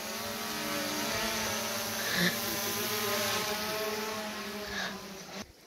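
Small quadcopter drone flying overhead, its propellers making a steady hum that shifts slightly in pitch. The sound cuts off near the end.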